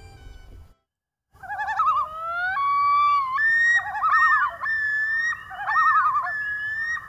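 The closing music stops, and after a brief silence a common loon calls: long wailing notes that glide up and bend in pitch, broken by quavering tremolo calls.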